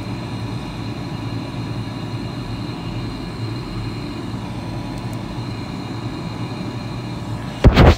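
Air conditioner running with a steady low hum and rushing noise, a few faint steady tones above it. A single loud thump comes near the end.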